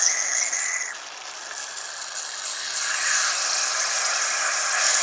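Aerosol carb cleaner spraying through a thin extension straw into a PCV valve: a continuous hiss that dips about a second in, then builds back up. The spray is flushing oil residue out through the valve in its open direction.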